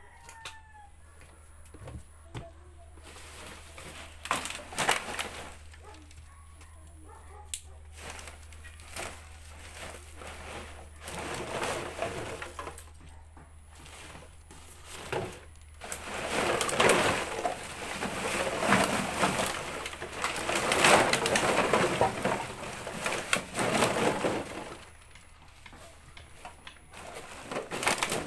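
Empty plastic drink bottles clattering and crinkling as they are rummaged and pulled out of a large woven polypropylene sack, with the sack's fabric rustling. It is sparse, scattered handling at first, then loud, continuous crackling through the middle and later part that eases off near the end.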